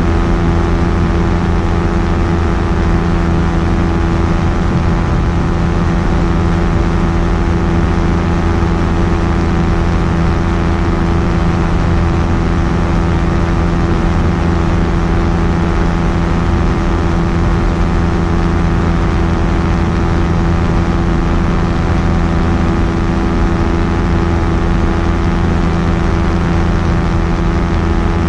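Quicksilver Sport 2S ultralight's engine and propeller running steadily at a constant speed, with no change in pitch or level.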